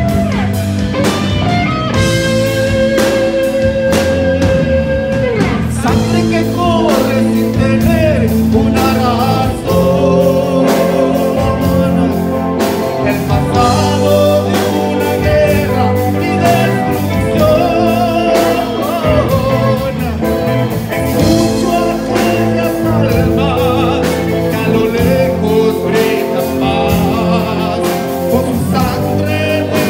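Live rock band playing: electric guitars, bass guitar and drums, with a singer's voice over them.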